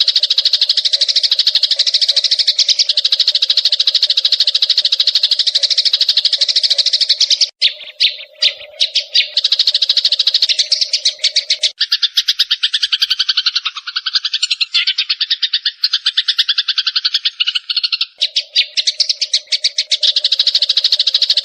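Sparrows chirping in a rapid, unbroken chatter of high calls, thinning briefly about eight seconds in and shifting to a lower-pitched pattern for several seconds past the middle.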